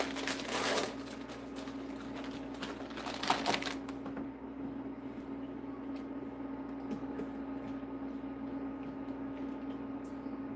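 Crinkling of a plastic Oreo cookie package as it is opened and a cookie pulled out, for about the first four seconds. After that a steady low hum, with a few faint clicks of a fork in a glass bowl of batter.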